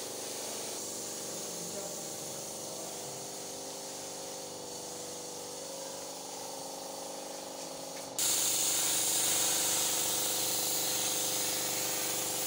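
A gravity-feed compressed-air paint spray gun starts spraying about eight seconds in: a sudden, loud, steady hiss of air and paint mist, as black paint is sprayed over a wall stencil.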